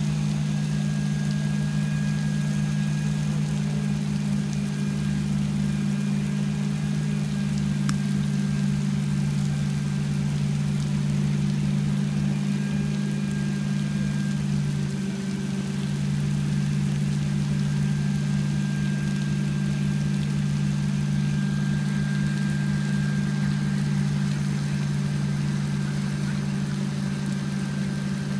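A motor running steadily with a low drone, over a faint hiss of artificial rain falling from a rain machine.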